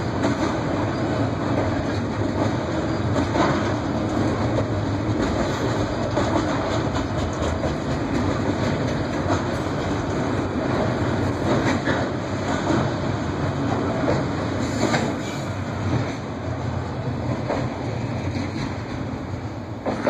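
Freight train of autorack cars rolling past at track level, wheels clacking over the rail joints over a steady rumble. The noise fades over the last few seconds as the end of the train goes by.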